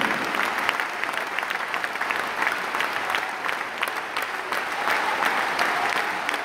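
Large crowd of fans applauding, a dense, steady clapping that follows a farewell speech.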